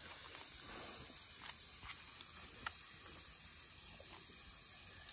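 Faint rustling and scattered crackles of leaves being pulled out of the mouth of a hot bamboo cooking tube, over a steady low hiss, with one sharper click about two and a half seconds in.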